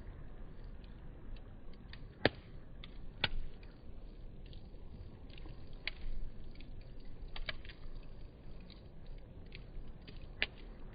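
Wood campfire crackling, with irregular sharp pops over a low hiss; the loudest pop comes a little over two seconds in, with others about a second later and near the end.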